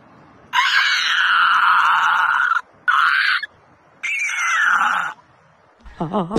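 A man screaming loudly with his mouth wide open, three times: a long scream of about two seconds, a short one, then one of about a second.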